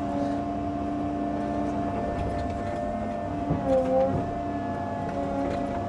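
Earthmoving machine's engine running steadily at a constant pitch, with a brief dip and rise in pitch about three and a half seconds in.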